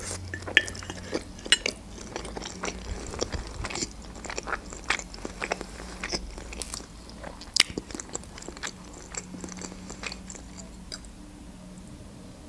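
Close-miked chewing of a mouthful of gyurza, an Azerbaijani fried-meat dumpling: irregular wet mouth clicks and smacks, thinning out towards the end.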